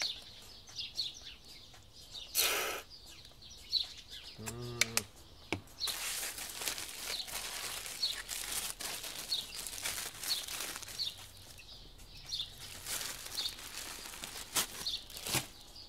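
Aluminium foil crinkling and rustling from about six seconds in as a foil-wrapped bun is unwrapped, with small birds chirping repeatedly.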